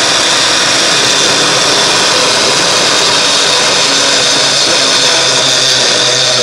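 Personal blender running steadily, its cup held pressed down on the motor base, blending frozen berries and liquid into a thick smoothie.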